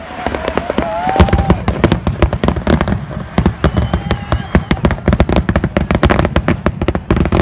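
Aerial fireworks finale barrage: a rapid, continuous string of bangs and crackles, many a second, growing denser about a second in.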